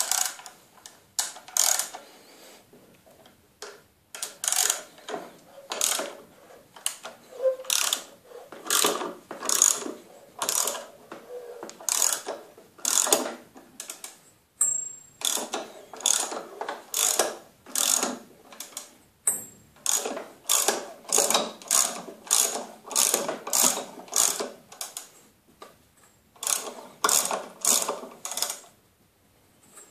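Ratchet wrench clicking in repeated short strokes, about one a second, with brief pauses, as it cranks the blade-tensioning screw of a homemade band saw mill to tension the band blade.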